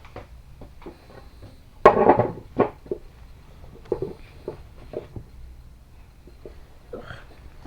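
Clatter and knocks of metal engine parts and tools being handled and set down on a work surface, loudest in a cluster about two seconds in, with scattered single knocks after.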